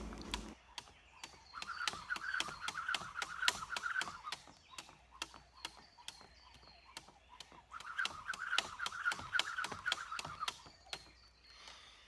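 Jump rope slapping a wooden platform in quick, even taps. Twice, for about three seconds each, a fast whirring buzz rises over the taps as the rope speeds up for a set of double unders; between these the rope turns slower for gentle skipping. The taps thin out near the end.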